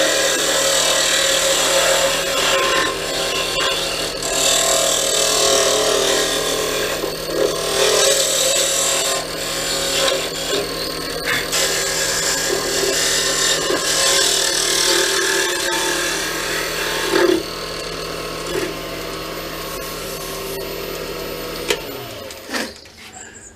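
Wood lathe running with a cherry pen blank being worked by a tool: a steady scraping hiss over the motor's hum. About a second and a half before the end, the motor stops and the sound falls away.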